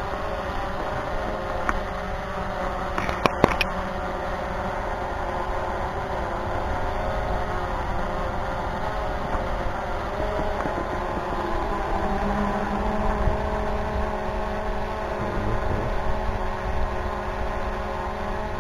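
Wind rumbling on the microphone over a steady mechanical whine of several tones, with a short burst of clicks about three seconds in.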